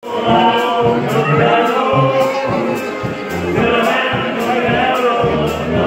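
Polka music with singing over a steady beat.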